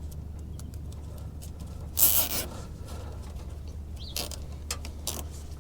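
A plastic zip tie being pulled tight around two wires: one short rasp about two seconds in, then a couple of fainter ones near the end.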